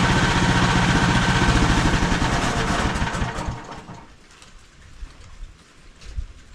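Gasoline engine of a MechMaxx SM32 portable sawmill running steadily, then dying away about three seconds in, leaving a quiet background with a few low thumps.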